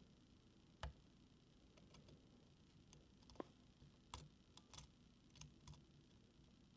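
Faint, irregular clicks and taps of a lock pick working the pins of a Mul-T-Lock Interactive+ dimple lock under tension, scattered singly and in small clusters.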